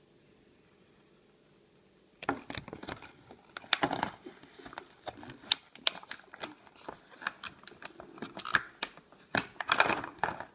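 Paper collector's sheet crinkling and rustling as it is unfolded and handled. The crackles start about two seconds in and carry on irregularly until near the end.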